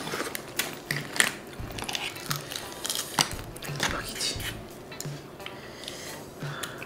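Crab shells cracking and crunching as braised blue crab is bitten and pulled apart by hand, a string of sharp irregular clicks, over light background music with a soft regular beat.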